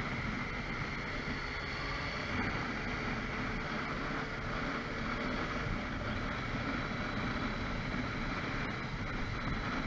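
Motorbike engine idling steadily while stopped at a junction, with a background hum of city traffic.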